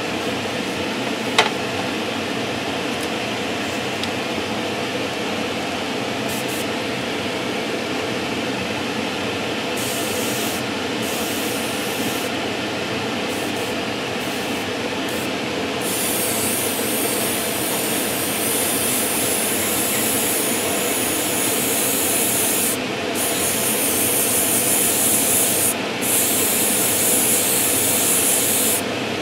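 Steady hum of a spray booth's extractor fan, with an airbrush spraying thinned paint over it: its hiss comes in short bursts from about ten seconds in, then runs almost continuously with a few brief breaks as the trigger is released.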